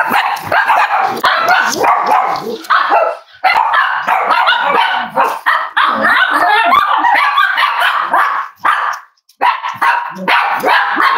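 Cavalier King Charles spaniels barking and yipping loudly in a near-continuous run, with short breaks about three seconds in and again near nine seconds.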